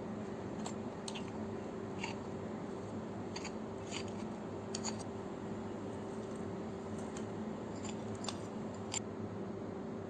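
Scattered small clicks and taps of hands working with food and kitchen utensils, over a steady hum.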